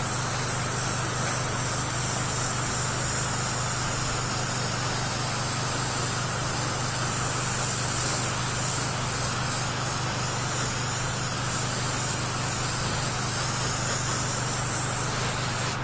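Hobby airbrush spraying a coat of Mirror in a Can chrome mirror paint: a steady hiss of air, with the small airbrush compressor's motor humming underneath. The spray hiss cuts off right at the end.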